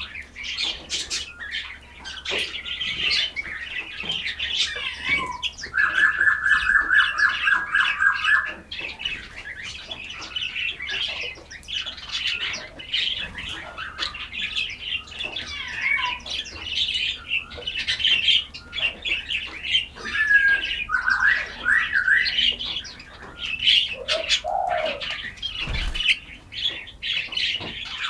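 Several forest birds singing and chirping together in a busy, continuous chatter. A fast trill of evenly repeated notes runs for about three seconds starting around six seconds in, and a few slurred, falling calls come near the end.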